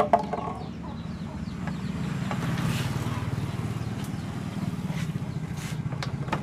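A small engine idling steadily, its low hum pulsing quickly, with a few light clicks near the start and a brief hiss about two and a half seconds in.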